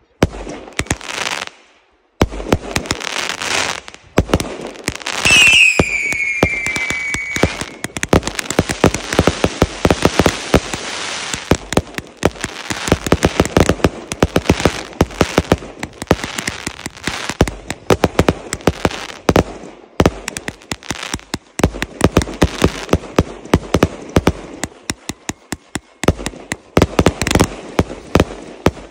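Fireworks going off: a dense run of sharp pops and crackling bangs from aerial shells and rising comets. About five seconds in there is a whistle that falls slightly in pitch and fades after about two seconds.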